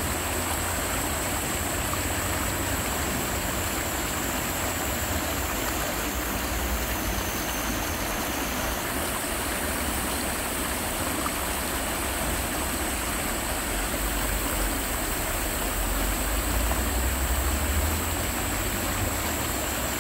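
Shallow, rocky mountain stream rushing and splashing over stones: a steady, even rush of running water.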